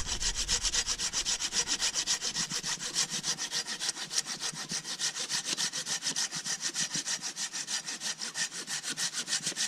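Silky Gomboy Japanese pruning saw cutting through a piece of dead wood with fast, even back-and-forth strokes, several a second.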